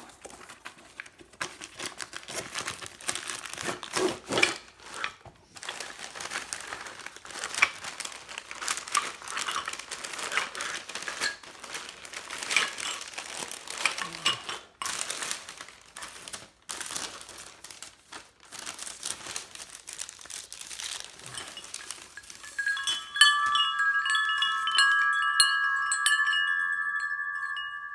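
Packaging being opened: crinkling and rustling of wrapping with many small crackles for about twenty seconds. Then, a little over twenty seconds in, the aluminium-alloy wind chime tubes start ringing together in several steady tones, the loudest sound here, slowly fading.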